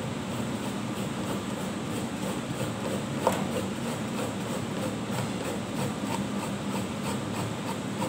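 Vegetable being rubbed on a metal box grater into a plastic basin: repeated rasping strokes, about three a second, with a sharper knock about three seconds in, over a steady background hum.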